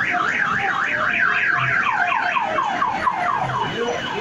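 Electronic siren sound, like a car alarm: a fast up-and-down warble, about five cycles a second, that changes about halfway through to a run of quick falling sweeps.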